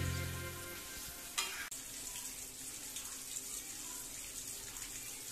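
Fish curry simmering in a steel kadai, a steady soft bubbling and hiss, with one knock about a second and a half in. Background music fades out at the start.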